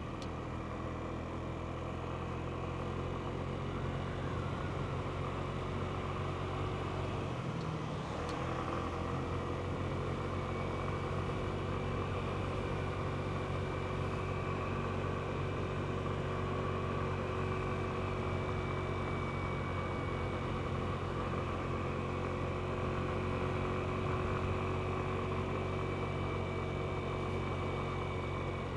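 Genuine Buddy 125 scooter's single-cylinder four-stroke engine running steadily under way, with a brief dip in engine note about eight seconds in before it picks back up.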